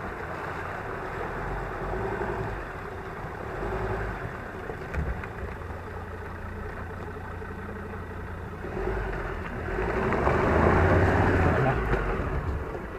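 A 2017 Ford Ranger Wildtrak's diesel engine runs at low revs as the lifted truck crawls through a muddy, water-filled rut. The engine gets louder for a couple of seconds about ten seconds in.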